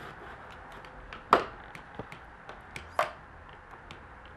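Plastic Play-Doh tree mould being pushed down by hand: two sharp plastic knocks about a second and a half apart, with light clicking and tapping between.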